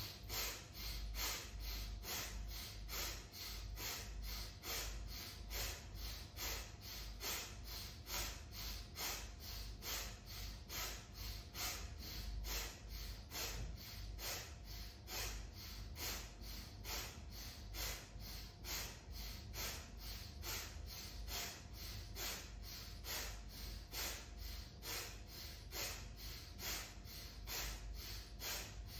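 A woman breathing forcefully in and out through her nose in a quick, even rhythm: paced yoga breathing timed to shoulder shrugs.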